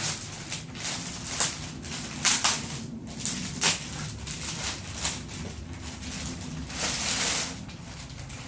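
Cardboard and styrofoam packaging rustling and scraping in bursts as a heavy plastic display rack is worked out of its box, over a steady low hum.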